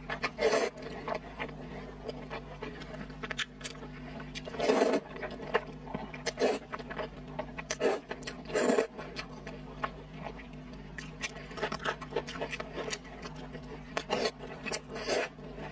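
Close-miked slurping and chewing of yam-starch vermicelli noodles with braised pork belly. There are several loud slurps, with many small wet mouth clicks and smacks between them, over a faint steady hum.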